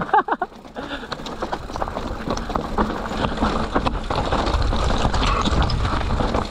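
Electric enduro mountain bike riding fast down a rough singletrack: tyres rattling over stones and roots, with the chain and frame clattering. The constant clicks ride over a low rumble that grows louder in the second half.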